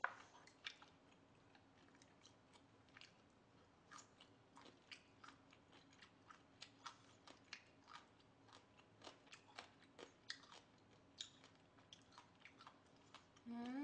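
Close-miked chewing: faint, irregular wet mouth clicks and smacks, a few a second, as boiled duck meat is chewed. Near the end, a short hum from the voice.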